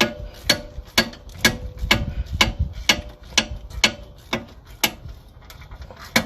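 Ratchet wrench clicking in a steady rhythm, about two sharp clicks a second.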